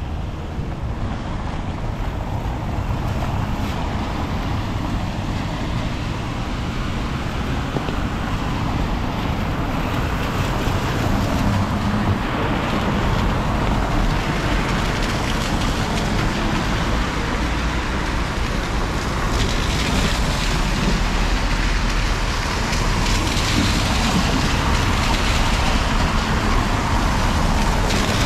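Rainy city-street ambience: steady wind rumble on the microphone over the hiss of rain and wet traffic noise. The hiss swells in the last third.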